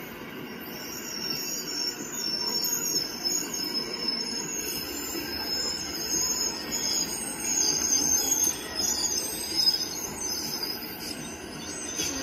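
LEGO train cars rolling slowly around a curve of plastic track, with a wheel rumble and a high, wavering squeal.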